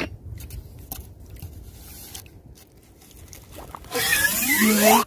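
A plastic suction pipe plunged into a burrow in wet sand under shallow water and worked, sucking up water and sand with a loud slurping gurgle for about a second near the end. Faint scrapes and small splashes come before it.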